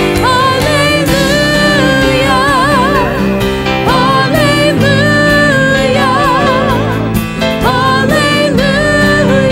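Gospel music: a singer holding notes with a wide vibrato over steady instrumental accompaniment.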